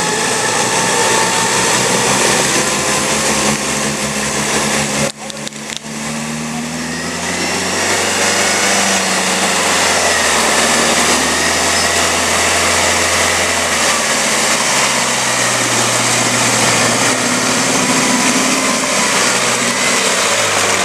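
Daihatsu off-road 4x4 working through deep mud on a winch line: its engine runs and revs up and down, with a high whine over it. The sound drops briefly about five seconds in.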